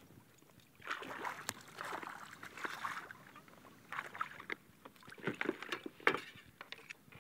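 A hooked bluefish thrashing and splashing at the water's surface beside a kayak, with a few sharp knocks in the second half.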